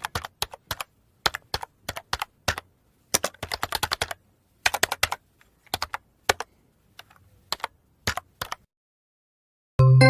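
Computer keyboard typing: irregular key clicks in quick runs with short pauses, stopping about 8.5 seconds in. Just before the end a loud ringing chime strikes and starts to fade.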